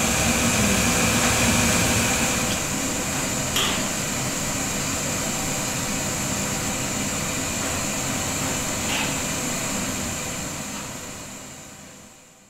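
Steady background hum and hiss of a room with a high, thin whine in it, like a fan or air conditioning running. A faint click comes about three and a half seconds in, and the sound fades out over the last couple of seconds.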